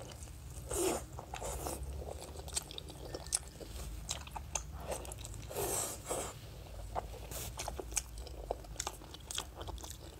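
Close-up biting and chewing of crispy-skinned roast pork: irregular crackly crunches and wet chewing, with louder crunching bites about a second in and again around six seconds.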